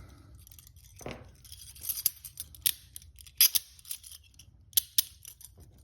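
Steel handcuffs clicking and scraping as they are worked by hand while the small double-lock lever is probed, with several sharp metallic clicks at irregular intervals.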